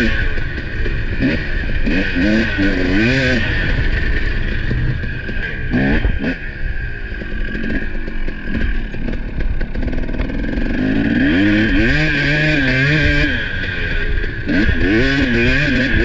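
Husqvarna 300 two-stroke dirt bike engine under way, its note rising and falling as the throttle is opened and closed. There is a dip about six seconds in and a longer pull up in pitch past the two-thirds mark.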